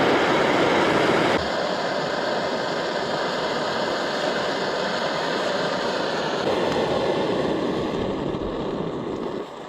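Strong blizzard wind howling through the trees, a steady rushing noise that eases slightly about a second and a half in.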